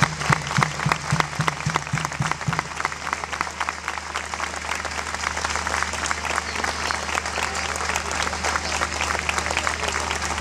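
Audience applauding, dense and steady. For the first couple of seconds a regular low beat about four times a second runs under the clapping, then it gives way to even applause.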